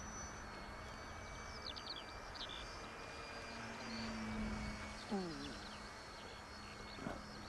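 Electric motor and propeller of a radio-control FW190 model plane in flight, a steady distant hum with a thin whine above it that swells a little near the middle. Wind noise on the microphone and small birds chirping run through it.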